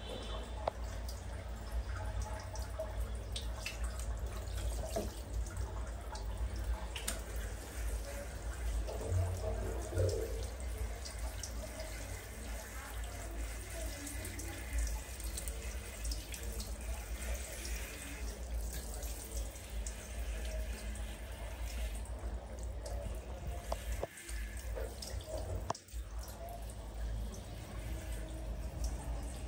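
Handheld shower head running, spraying water over a baby monkey's head and back and splashing onto a tiled floor.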